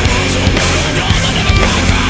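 Loud heavy rock music with a pounding drum beat.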